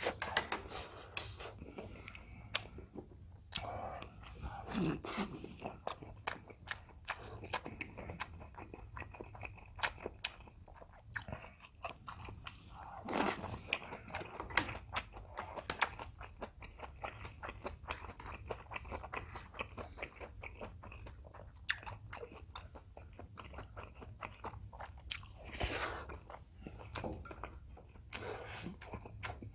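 A person chewing and eating food close to the microphone, with many short clicks of a spoon and chopsticks against bowls and pans. There are two longer, louder noises, one about halfway through and one near the end.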